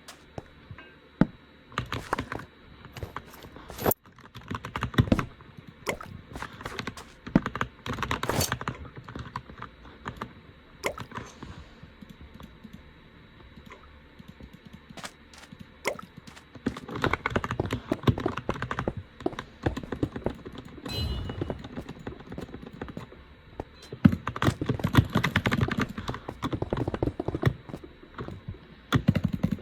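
Computer keyboard being typed on: scattered single key clicks, then dense runs of fast typing about halfway through and again near the end, with short pauses between.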